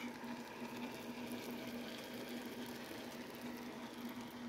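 Pieces of steak frying in their juices in a pan, a faint, steady sizzle and bubbling, over a steady low hum.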